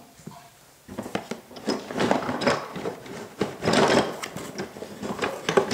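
Rummaging among wooden toy railway pieces in a box: an irregular run of clicks, knocks and rustling that starts about a second in.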